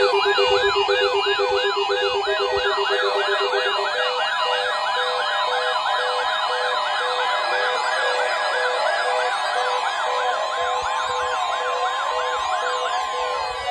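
Several weather-alert radio receivers alarming at once for a NOAA Weather Radio weekly test. A steady warning tone near 1 kHz sounds under rapid, siren-like up-and-down sweeping alarms and on-off beeping; a low pulsing beep stops about four seconds in, and a slower zigzag siren joins partway through.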